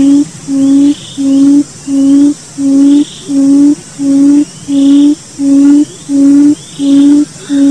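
Lure-call recording of the puyuh hutan, the barred buttonquail: a low, steady hoot repeated about every 0.7 s, around eleven in a row, over a faint high hiss and faint higher chirps.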